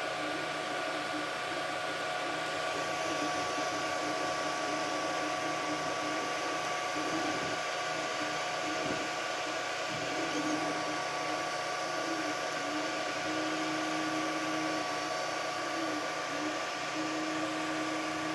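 Creality Ender 3 V2 3D printer printing at a set speed of 300: its fans hum steadily with a hiss, while the stepper motors whine in short tones that keep jumping in pitch as the print head and bed change direction and speed.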